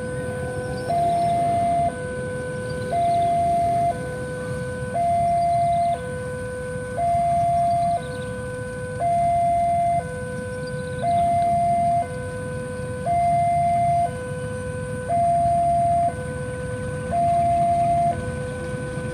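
Railway level-crossing warning alarm sounding a two-tone electronic signal, switching about once a second between a low tone and a louder higher tone, over a steady low rumble.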